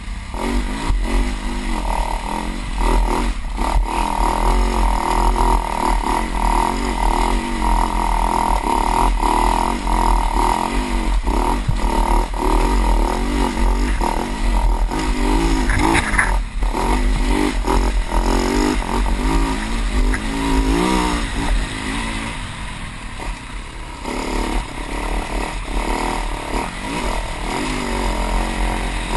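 Dirt bike engine ridden along a rough trail, its pitch rising and falling as the throttle opens and closes, with a few sharp knocks. A heavy low rumble of wind buffets the helmet-mounted microphone.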